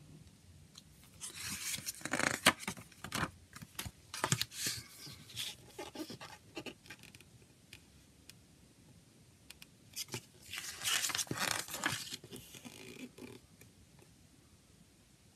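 Paper rustling and crinkling from a CD booklet being handled and its glossy pages turned by hand, with a few sharp clicks. It comes in two spells of handling, about a second in and again about ten seconds in, with quieter stretches between.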